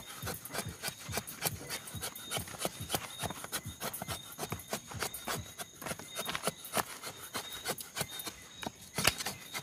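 A blade shaving thin curls of kindling off a wooden stick: quick scraping strokes, several a second, with one sharper stroke near the end.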